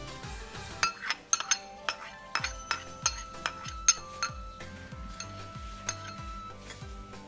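Metal spoon clinking and scraping against ceramic dishes while scraping chopped ginger off a small plate, with a quick run of sharp clinks from about a second in to just past the middle. Background music with a steady beat plays underneath.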